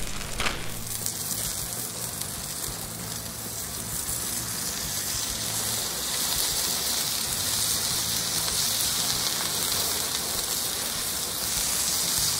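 A half-pound smash burger patty sizzling on a Blackstone flat-top griddle as it is pressed flat under parchment paper with a steel smasher: a steady hiss that swells a little a few seconds in, blended with the sound of rain coming down.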